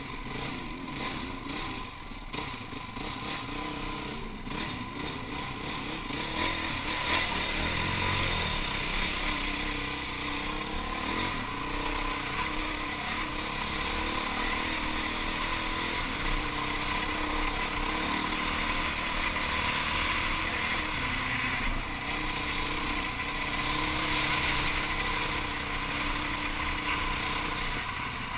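Enduro motorcycle engine heard from the rider's helmet camera while riding a dirt and gravel trail, its pitch stepping up and down as the throttle opens and closes, over a steady rushing noise.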